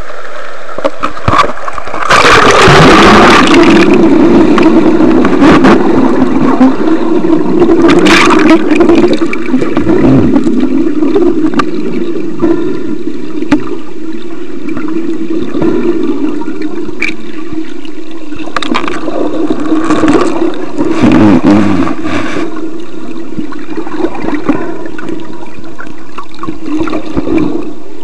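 Water sloshing and gurgling, heard muffled through a camcorder's microphone sealed inside a plastic phone case, with a loud splash about two seconds in as the camera goes under. After that a steady low drone of water against the case, with more surges of sloshing here and there.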